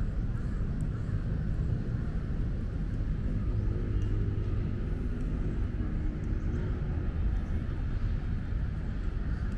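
Steady low outdoor rumble of distant engine noise, with a faint engine hum standing out from it for a few seconds in the middle.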